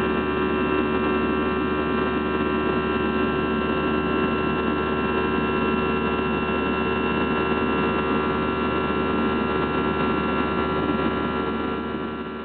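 Steady cabin drone of an Airbus A320 climbing after takeoff: the turbofan engines heard from inside the cabin as a constant hum with several steady whining tones. It starts to fade near the end.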